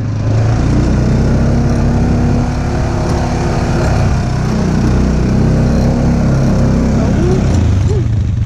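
ATV engine running close by, steady throughout, its pitch shifting a little as the throttle changes.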